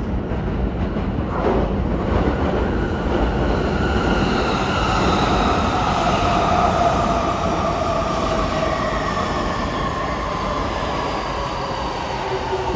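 Electric train pulling into a station platform: steady rumble of wheels on rail with a whine of several tones sliding slowly down in pitch as the train slows.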